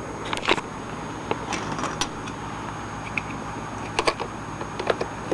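Light, irregular plastic clicks and taps as the loose power button and its snap-on plastic cover are pressed and fitted back into an Acer Aspire 5050 laptop, over a steady low hum.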